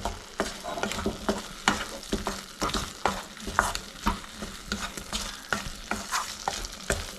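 Fried ivy gourd pieces being stirred into masala in a frying pan with a spatula: irregular scraping strokes against the pan over a low sizzle.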